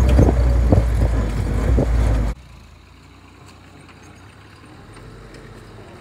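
A vehicle running close to the microphone, a loud low rumble with scattered knocks, cuts off suddenly a little over two seconds in. After that a vintage military jeep on a dirt bush track is faint and slowly grows louder as it approaches.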